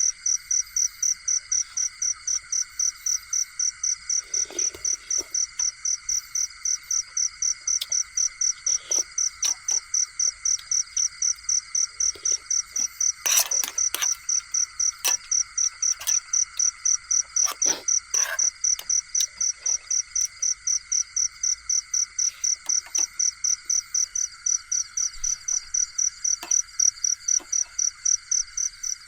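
A cricket chirping in rapid, even pulses at a high pitch, over a steady background chorus of insects and frogs, with a few faint clicks midway.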